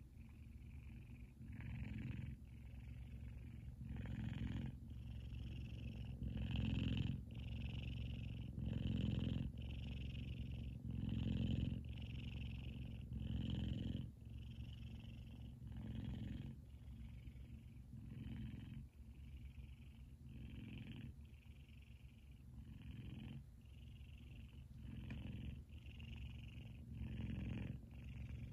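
F2 Savannah cat purring loudly in its sleep, the purr swelling and easing with each breath about every two seconds.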